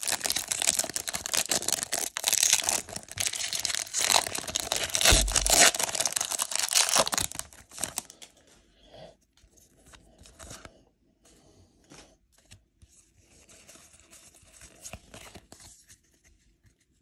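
Foil wrapper of a Pokémon Evolving Skies booster pack being torn open by hand, with loud tearing and crinkling for about seven seconds. After that, only faint soft rustles and taps as the cards are slid and shuffled by hand.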